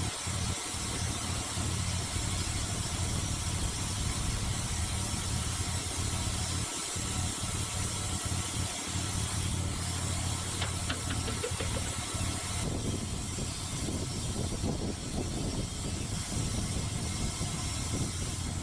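Gas engine of a Norwood Lumbermate Mark IV portable bandsaw mill running steadily with an even hum while milling cedar logs.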